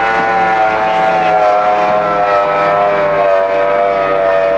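Racing powerboat engine running flat out as the boat planes past, a steady loud engine note that slowly drops in pitch as it moves away.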